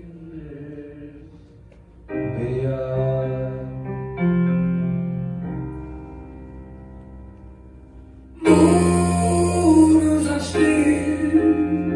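Live keyboard and double bass playing slow, held chords. New chords come in about two and four seconds in, and about eight and a half seconds in a louder, fuller chord lands with a deep bass note.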